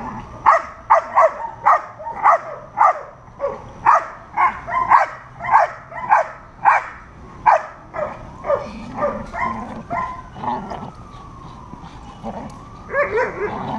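A dog barking at a decoy in protection training, short sharp barks about two a second, which stop about seven seconds in. A siren rises and falls in the background in the second half.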